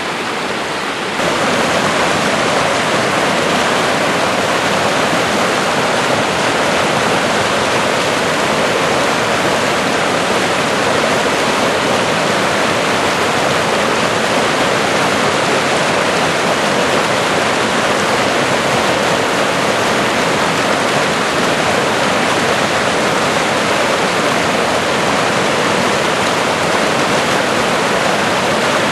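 Swift-flowing stream after rain, white water rushing over granite boulders in a steady, loud, even rush. A little over a second in it jumps louder and stays there.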